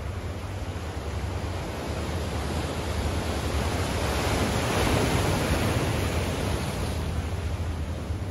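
Small waves washing against shoreline rocks, swelling to a peak about halfway through and then easing off, over a steady low rumble.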